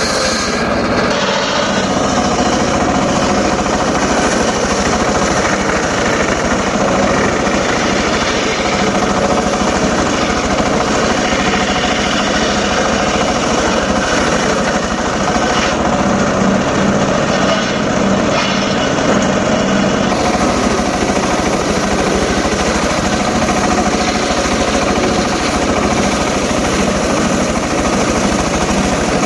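Homemade circular saw rig running steadily while short teak pieces are cut, a loud continuous mechanical drone. The sound changes briefly a little past halfway.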